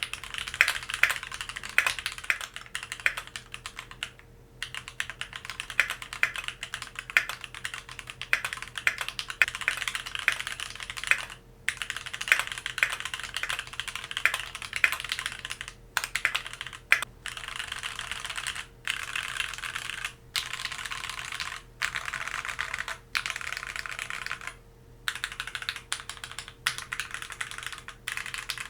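Keychron Q2 mechanical keyboard with Gateron G Pro Brown tactile switches being typed on, keystrokes clicking in quick runs with brief pauses. A little past halfway the typing turns into dense flurries of random key-mashing, separated by short gaps.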